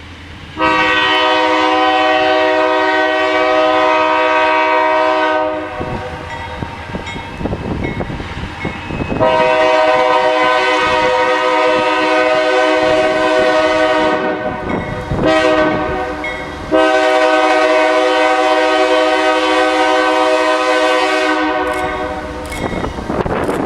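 Diesel locomotive air horn sounding a chord in the long-long-short-long pattern of a grade-crossing signal, over the rumble of a loaded taconite train rolling by.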